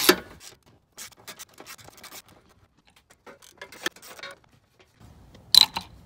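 Quarter-inch drive ratchet clicking in short runs as it backs out the hood latch's mounting bolts, followed by a louder knock near the end.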